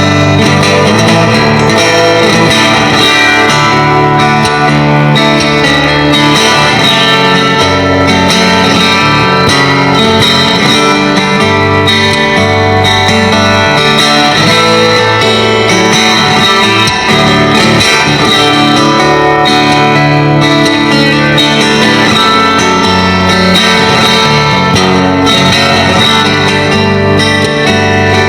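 A guitar played fingerstyle, an instrumental piece without singing. Changing bass notes run under a melody line.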